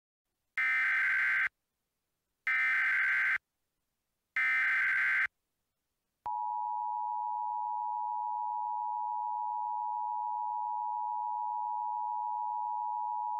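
Emergency Alert System SAME header: three screeching bursts of digital data tones, each about a second long, with about a second of silence between them. About six seconds in, the steady two-tone EAS attention signal starts, announcing a new alert, here a tornado warning.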